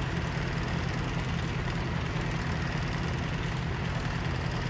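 An engine running steadily at a constant speed, with a low, fast, even pulsing.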